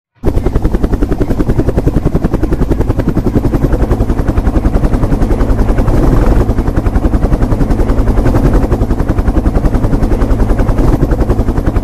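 Helicopter rotor sound: fast, even, loud chopping beats of spinning blades, steady throughout.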